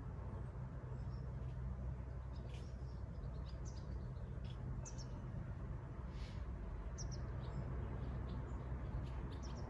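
Small birds chirping in short, scattered high calls, over a steady low rumble.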